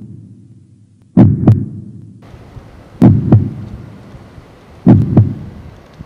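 Heartbeat sound effect: three deep double thumps, lub-dub, about two seconds apart. A faint steady hiss comes in about two seconds in.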